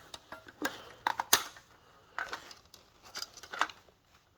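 Fire-Lite BG-12 manual fire alarm pull station being worked by hand to reset it: a handful of irregular sharp clicks and knocks from its spring-loaded handle and cover, the loudest a little over a second in.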